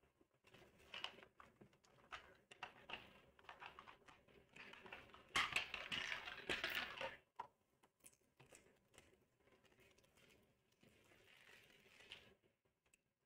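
Faint rustling and clicking as a plastic Mini Brands capsule ball is pulled apart and its foil-wrapped pods are handled. The sounds are scattered and irregular, busiest from about five to seven seconds in, with a sharp click at the start of that stretch.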